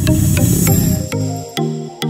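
Background music: a dense, full passage that changes about a second in to a steady beat with short held notes.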